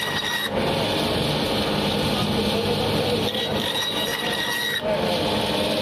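Electric band saw (bone saw) running steadily as a katla carp's head section is pushed through its blade, with a constant hum and a thin high whine that comes and goes.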